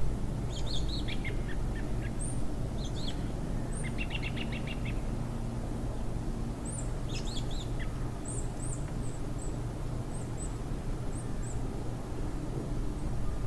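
Small birds chirping and calling, with short high notes scattered throughout and a quick trill of rapid repeated notes about four seconds in, over a steady low rushing background.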